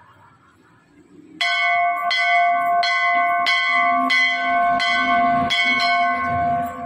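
Hanging brass temple bell rung by hand, struck about seven times at an even pace, each clang ringing on into the next; it starts about a second and a half in.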